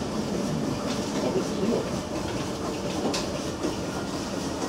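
Steam engine of the steamboat St. Georg running steadily, a continuous mechanical noise with a few light clicks.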